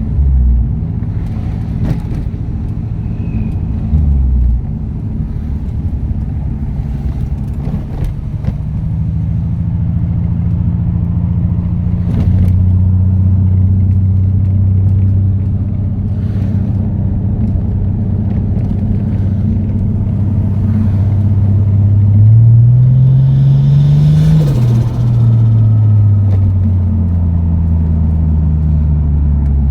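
Turbocharged Toyota Supra engine running through an HKS straight-through rear muffler and larger down pipe, with a deep exhaust note while driving. The note holds steady for long stretches, dips briefly twice early on, and about three-quarters of the way through rises with the revs and falls back. The engine has a cylinder misfire, which the owner suspects is a blocked injector.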